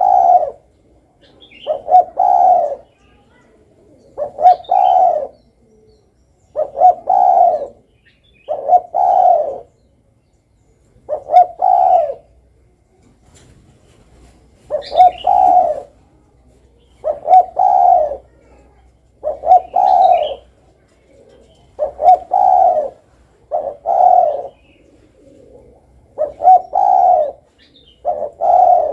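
Spotted dove cooing, one low coo phrase about every two to three seconds.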